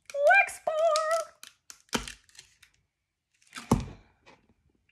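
A woman's brief high-pitched vocal sound, then two sharp plastic cracks about two seconds apart, the second louder, as a Scentsy wax bar's plastic clamshell is snapped open.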